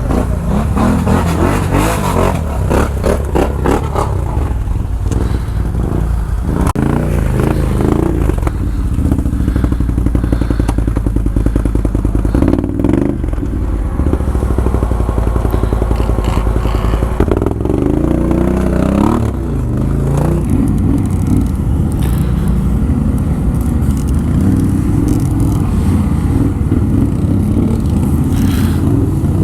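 ATV engine running hard and revving up and down repeatedly as it works over rough, rocky ground, with occasional knocks.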